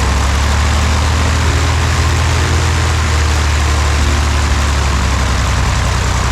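Cessna 172 Skyhawk's piston engine idling on the ground, a steady low drone.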